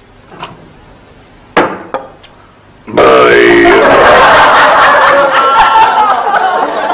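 A few faint knocks, then about three seconds in a studio audience breaks into loud, sustained laughter.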